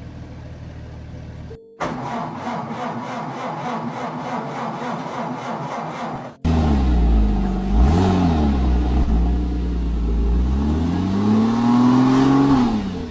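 Car engine sounds in spliced clips: after a short steady hum, an engine runs with a fast, even rhythmic clatter, then an engine is revved up and down twice, climbing highest near the end.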